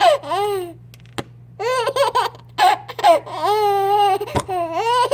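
A baby laughing in high-pitched, squealing bursts, one drawn out for nearly a second near the middle. There is a sharp knock about a second in and another near the end.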